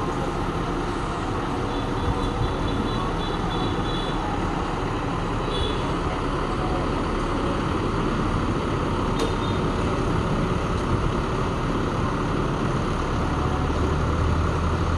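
Engine of a truck-mounted crane running steadily under load, driving the crane's hydraulics as it holds and positions a concrete utility pole. A deeper drone comes in near the end.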